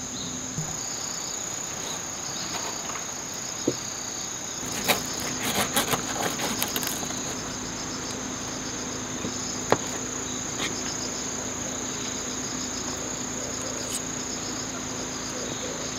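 A steady, high-pitched insect chorus chirring without a break, with a few light clicks of cutlery on a plate, mostly from about four to seven seconds in.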